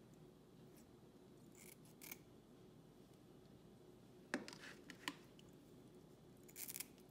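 Kitchen scissors cutting the fins and tails off sardines: a few separate sharp snips, the loudest about four seconds in and a quick cluster near the end, over a faint steady hum.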